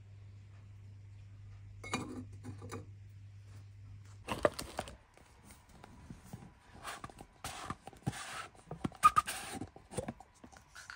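Quiet handling noises from hands taking items out of a cardboard gift box: short rustles with light clicks and knocks, several brief bursts from about four seconds in. A faint steady hum runs underneath during the first four seconds or so.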